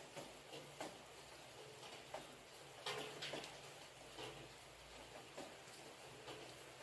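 Rain: scattered raindrops pattering at irregular intervals over a faint steady hiss, with a few louder drops close together about three seconds in.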